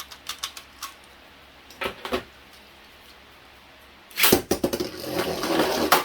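A few light plastic clicks, then about four seconds in Beyblade spinning tops are launched into a plastic stadium with a sudden clack. They spin with a continuous scraping rattle on the stadium floor.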